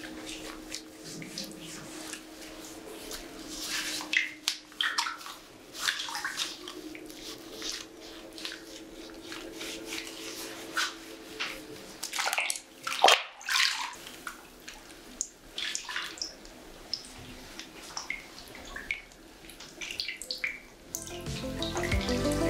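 Bathwater sloshing and splashing in a tub as a person scoops it over her arms and legs, in irregular splashes with the biggest one about halfway through.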